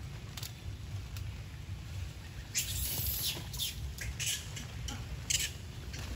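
Young monkey on wet leaf litter: a cluster of short, high squeaky sounds in the middle, over a steady low rumble.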